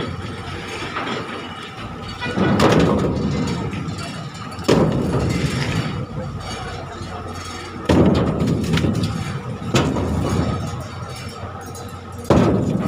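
Heavy thuds of fish, likely frozen catch, being dropped or thrown down during unloading from a longline fishing boat. There are five sudden knocks at irregular intervals, each dying away slowly.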